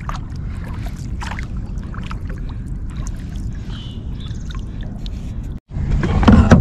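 Water gurgling and trickling along a kayak's hull as the boat moves over calm water, with a few light knocks. About five and a half seconds in the sound breaks off for an instant, then a louder, rougher noise starts.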